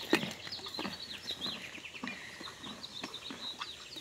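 Small birds chirping in quick runs of short, high notes that each drop in pitch. A single sharp click comes just at the start and is louder than the birdsong.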